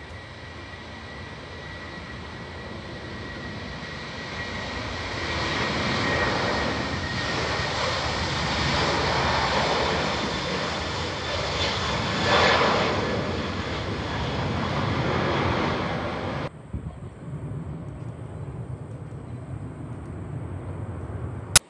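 An Airbus A330-300's General Electric CF6 turbofans at takeoff thrust as the jet rolls down the runway. The jet noise builds to its loudest about twelve seconds in. After an abrupt change it becomes a duller, lower rumble as the plane climbs away, with a sharp click near the end.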